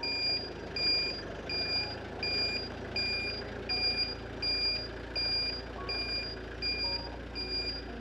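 Skid steer reversing, its back-up alarm beeping steadily at about one and a half beeps a second over the low rumble of its running engine.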